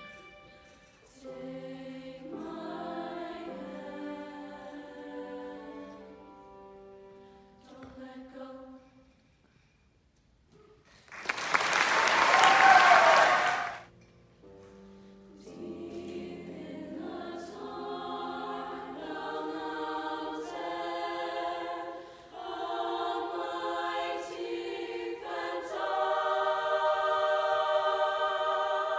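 Choir singing in several parts, a piece ending about nine seconds in. After a brief pause an audience applauds for about three seconds, the loudest part, then the choir begins a new piece.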